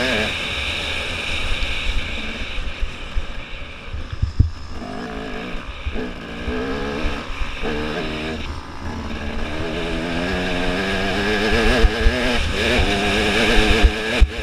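Dirt bike engine under way off-road: the throttle eases off a few seconds in, comes back in short bursts, then rises steadily in pitch as the bike accelerates. Wind buffets the helmet-mounted microphone throughout.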